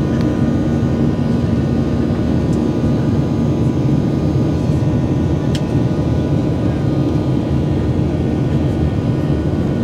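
Steady jet airliner noise from a Boeing 737-900ER's CFM56-7B turbofans and the airflow. It is a dense, even rumble with a few steady tones running through it.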